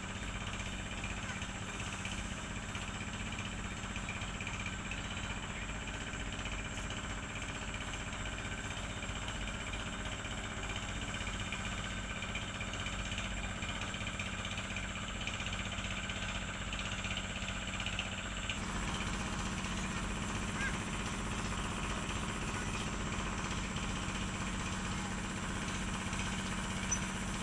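A boat's engine runs steadily with a fast, even chugging. About two-thirds of the way in its note shifts and it gets a little louder.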